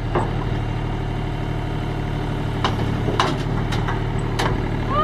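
Mini excavator's engine idling steadily, with a few short knocks scattered through it.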